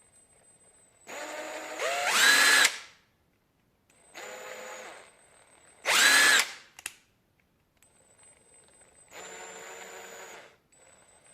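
Zubr GUL-401 K impact wrench's electric motor run free in four short trigger pulls at different speeds, its pitch rising as it winds up. This is a test run after cleaning and greasing, and it is running properly.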